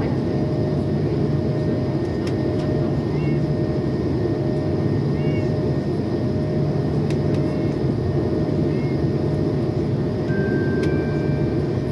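Steady cabin noise of an airBaltic Airbus A220's turbofan engines and the airflow past the fuselage, heard from a window seat in the climb, with a constant low hum and a steady whine.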